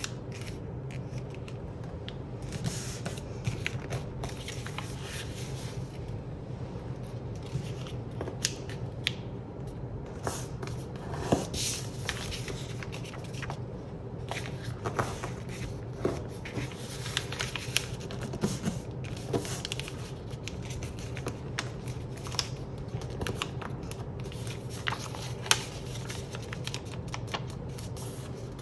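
A sheet of paper being folded by hand on a tabletop: irregular rustling and crinkling as it slides and bends, with a few sharper crackles as folds are pressed flat, over a faint steady low hum.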